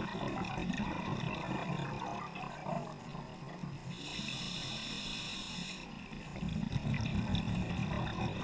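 Scuba diver breathing through a regulator underwater: a low bubbling rumble of exhaled air, a hissing inhalation through the regulator about four seconds in lasting about two seconds, then another bubbling exhalation.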